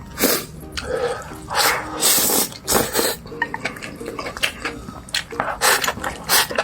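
Close-up eating sounds: loud, irregular chewing and slurping of a rice and egg dish, with sharp smacks and clicks.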